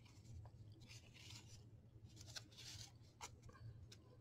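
Faint rustle of small paper cards being handled and slid against one another, with two soft swishes and a few light taps.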